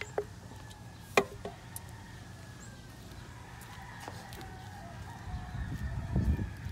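Birds calling faintly in the background, with one sharp knock about a second in and a low rumble near the end.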